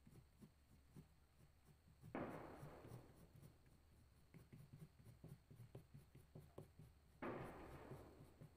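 Faint scratching of a crayon being scribbled on paper, a quick run of short strokes while colouring, with two louder rubbing passages of about a second each, about two seconds in and about seven seconds in.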